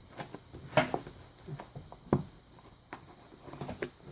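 Hands opening a cardboard parcel box: a run of short scrapes, taps and rustles, the sharpest about a second in.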